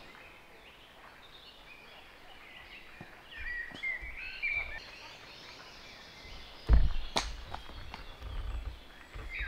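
Songbirds chirping and singing in woodland through the first half. About two-thirds of the way through comes a sudden loud thump with a sharp click just after, followed by low rumbling.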